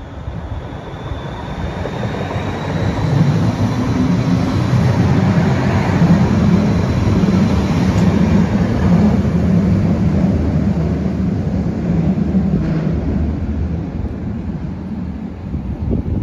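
Siemens Combino low-floor tram (Rheinbahn NF8U) approaching and passing close by on its way into the tunnel: the running noise builds over the first few seconds, stays loud through the middle and eases toward the end. A faint high whine rises in the first few seconds.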